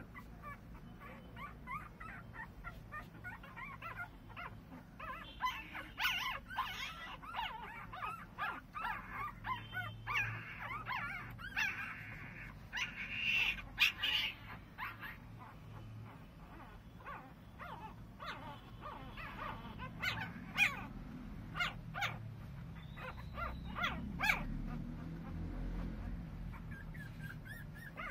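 13-day-old mastador puppies squeaking and whimpering in many short, high, wavering cries, thickest through the middle, then a run of sharp clicks near the end.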